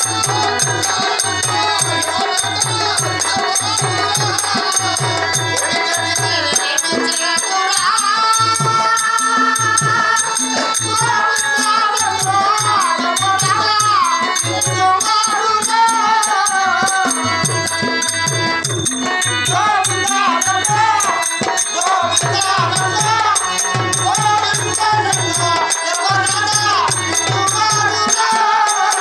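Live Indian folk-theatre music: a harmonium with a regular drum beat and constant jingling percussion. A voice starts singing about seven seconds in, and the drum drops out for stretches while the singing goes on.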